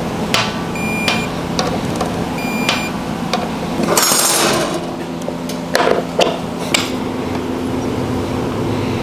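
Click-type torque wrench clicking as brake rotor bolts are tightened to 8 foot-pounds: a handful of sharp metallic clicks spread over the first seven seconds, some with a brief ring. A steady low hum sits underneath.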